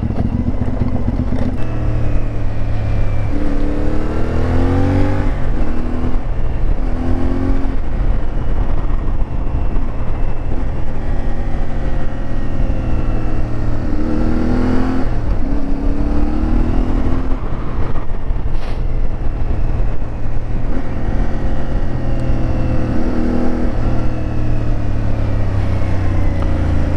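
CFMoto 450MT's parallel-twin engine under way, its revs climbing and dropping back several times as the bike accelerates and shifts gears.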